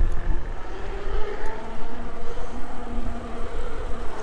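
Electric bike under way: a steady motor whine over a heavy low rumble of wind on the microphone.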